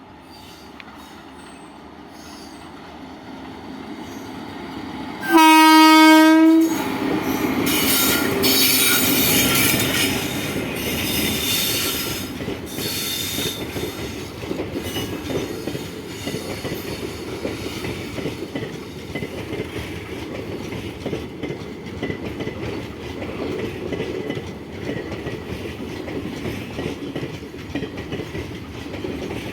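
Indian Railways Garib Rath superfast express running through a station without stopping. Its rumble builds as it approaches, and the locomotive sounds one long horn blast about five seconds in. The coaches then clatter past over the rails, with high wheel squeal as they take the loop line.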